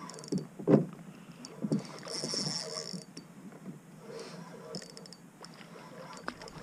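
Hollow knocks and clunks on a plastic Hobie Pro Angler fishing kayak, several sharp ones in the first two seconds and one near the end, with a short hiss about two seconds in.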